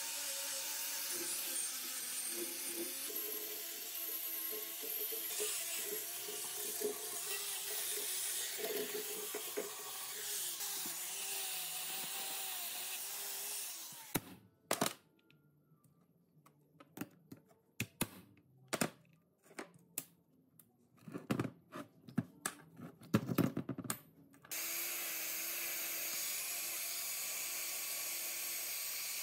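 A power tool running with a steady hissing noise. About halfway it stops for a stretch of separate sharp knocks and clicks, then starts running again near the end.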